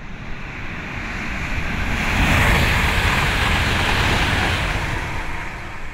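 A rushing noise with a deep rumble beneath it, which builds up, peaks about halfway through and dies away again, like something large passing by.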